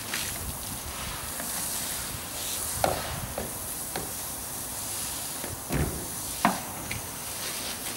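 Hose-fed car-wash brush scrubbing a car door, with water running from the brush in a steady hiss and a few short knocks as the brush head and handle bump the door.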